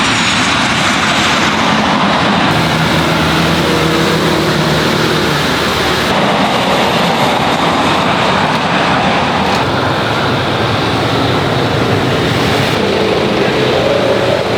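Jet airliner engines running loudly and steadily, a broad rushing noise with some low hum. The tone changes abruptly every few seconds, as if separate shots are cut together.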